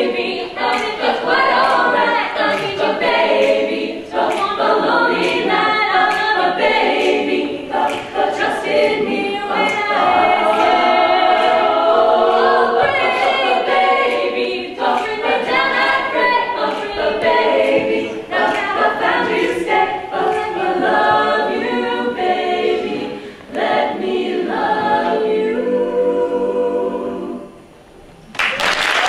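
All-female a cappella group singing in close harmony, a lead voice over the backing voices, with no instruments. The song ends on a long held chord that cuts off about a second and a half before the end, and applause breaks out right at the very end.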